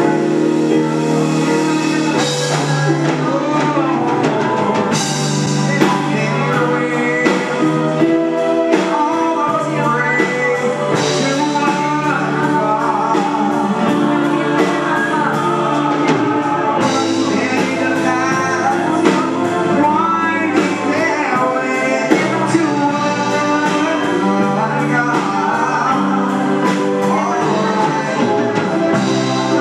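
Live band and singers performing a song: several voices over keyboard, congas and a steady drum beat.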